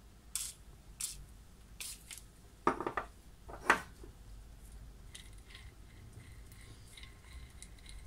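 Short hisses of WD-40 aerosol sprayed onto a washing-machine universal motor's rotor ball bearing: three quick bursts, then two louder ones about three seconds in. After that comes a faint thin whir with light ticking as the freshly lubricated bearing is turned.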